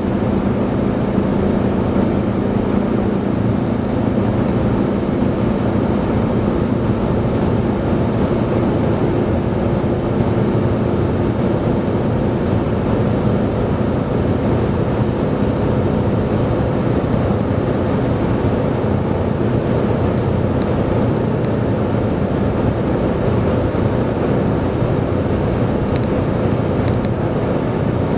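Steady road and engine noise inside a car cruising at highway speed, with a low, even hum that does not change.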